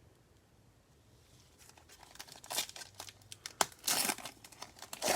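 Panini Prizm baseball card pack wrapper being torn open and crinkled by hand: a run of irregular crackling rips that starts after a quiet second or so and grows louder toward the end.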